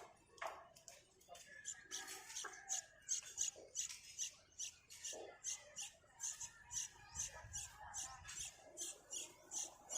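Baby bird cheeping over and over, short high chirps at about three a second.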